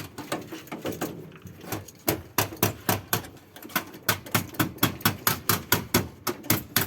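A quick run of sharp clicks or taps, sparse at first, then coming about four to five a second from about two seconds in.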